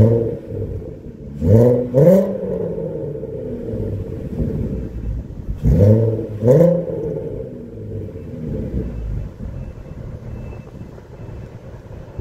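Volkswagen Beetle pickup's 3.2-litre VR6 engine through a custom cat-back exhaust, idling and blipped twice in quick succession about a second and a half in, then again about six seconds in, each rev dropping straight back to idle.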